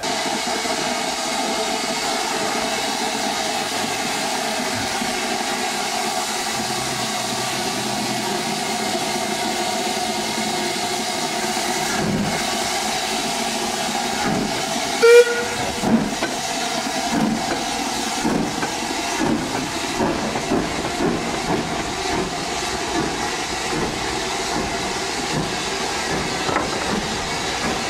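Steam tank locomotive Metropolitan No. 1 hissing steam steadily at close range. About halfway there is a short whistle, and then the wheels of the passing coaches knock unevenly over the rails.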